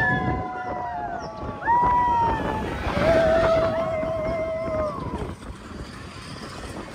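Riders on the Seven Dwarfs Mine Train roller coaster screaming and whooping in several overlapping long held cries that fall off at their ends, over rushing wind and the rumble of the moving train. The cries die away after about five seconds, leaving wind and train noise.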